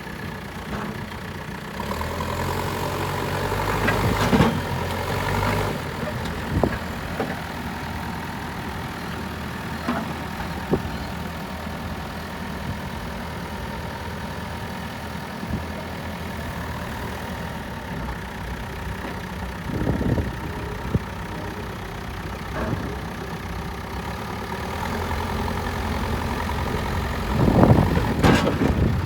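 An engine running steadily at idle, louder for a few seconds early and again near the end, with a few sharp knocks and clatters.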